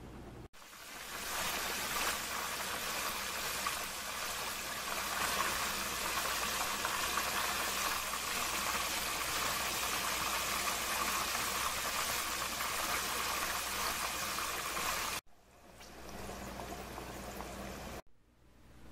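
Crumb-coated pork strips deep-frying in hot oil, a steady sizzle that starts about half a second in and cuts off suddenly a few seconds before the end.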